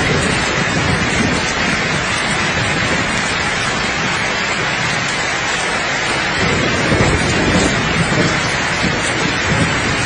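Steady rain falling, with a low thunder rumble that swells about six and a half seconds in.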